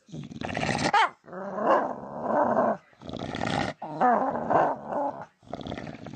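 A dog giving a run of growling, warbling vocal sounds in about five short bouts, the pitch bending up and down in each.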